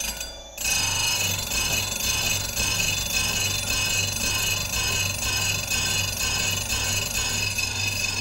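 Sharpening machine's motor running and its fine 20/14 (about 1000 grit) diamond wheel grinding the edge of a round slicer knife during the finishing pass, starting just under a second in. A steady hum under a scraping hiss that pulses about twice a second.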